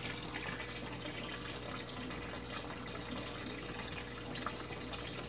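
Aquarium overflow water gushing steadily down into a drain tank, a continuous pouring rush. The overflow is draining freely now that a jiggle has started the flow.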